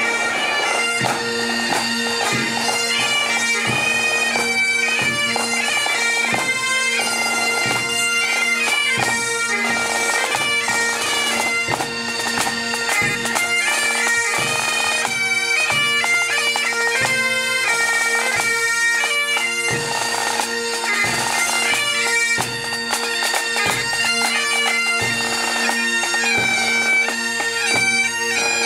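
Pipe band playing: several Scottish Highland bagpipes sound a melody over steady, unbroken drones, with a bass drum and a smaller drum beating along.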